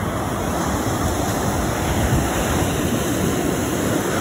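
Ocean surf rushing steadily on a beach, with wind on the microphone.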